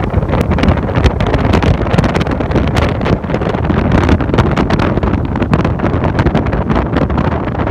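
Wind buffeting hard on the microphone over the steady running of a Ranger boat's outboard motor at speed.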